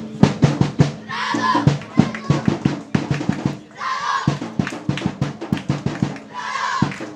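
Supporters' drum beaten in a fast, steady rhythm, with a short shouted chant repeating about every two and a half seconds.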